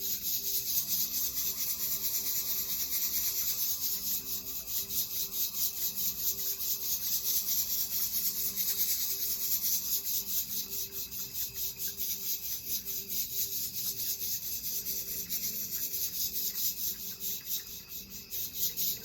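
A fast, even rasping scrape, many strokes a second, over the steady hum of a quartz crystal singing bowl. The rasping stops abruptly at the very end with a brief knock.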